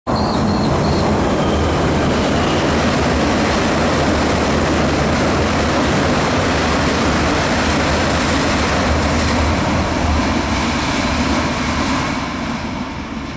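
V/Line VLocity diesel multiple unit train passing over a steel girder bridge: its underfloor diesel engines hum while the wheels rumble steadily on the rails. The sound fades away near the end as the train moves off.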